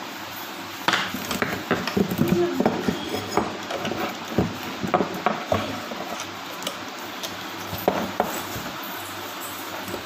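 Irregular metallic clinks, knocks and scraping as a wall-fan motor is handled and scraped clean of dust.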